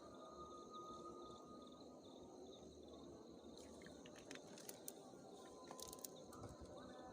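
Near silence: a faint, steady chorus of insects chirping in the background, with a few faint clicks in the middle.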